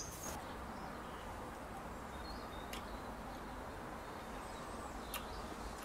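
Quiet outdoor background with a few faint, brief bird chirps and a couple of light clicks from a knife and fork on a plate as a piece of steak is cut.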